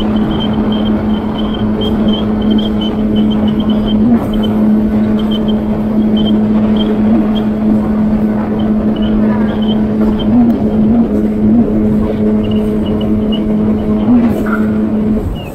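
Jet ski engine running at a steady speed: a loud, constant drone over a rushing noise, dropping away near the end.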